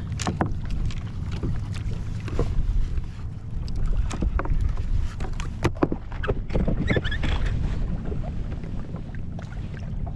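Wind rumbling on the microphone on a kayak at sea, with scattered knocks, clicks and rustles as a fish is handled in and the seaweed is cleared off the line.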